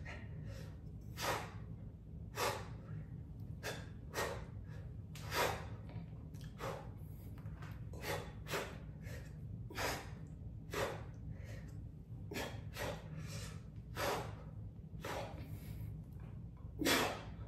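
A man breathing hard under exertion while pressing dumbbells overhead: short, forceful breaths about once a second, keeping time with the reps.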